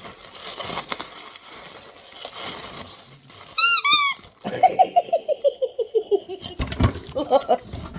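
Rubber squeaky dog toy being squeezed: two short high squeaks about three and a half seconds in, then a quick run of squeaky notes falling steadily in pitch. A few soft knocks and thumps come near the end.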